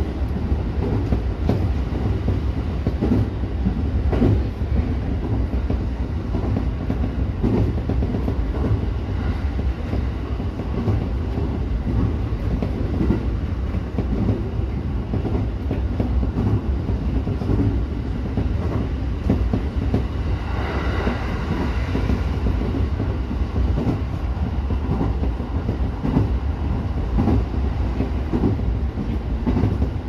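JR E231-series electric train running at speed, heard from just behind the driver's cab: a steady low rumble with the clack of wheels over rail joints. A brief higher-pitched sound rises over the rumble about two-thirds of the way through.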